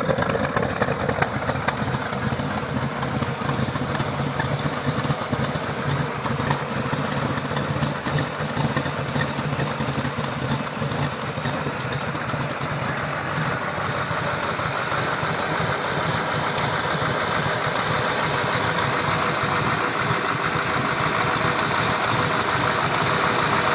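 The restored 1969 Corvette's 383 cubic-inch V8 running steadily at idle, growing gradually louder over the second half.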